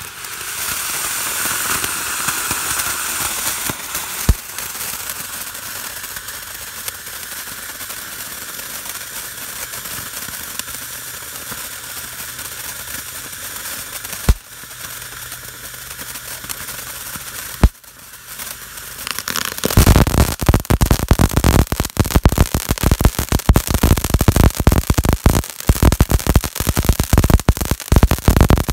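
Ground firework fountain burning. It gives a steady spraying hiss broken by three sharp pops, then switches about twenty seconds in to dense, rapid crackling.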